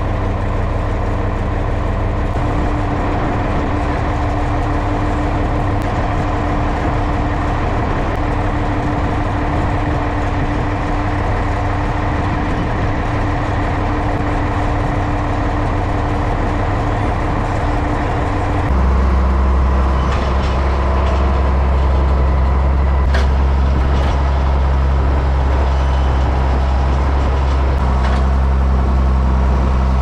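A large vehicle engine running steadily. About 19 s in the note of the engine shifts and it grows a little louder, as the engine changes speed or load.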